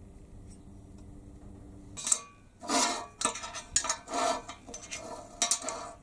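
Cut steel flat-bar pieces clinking and scraping against a steel worktable in a quick series of metallic knocks, starting about two seconds in.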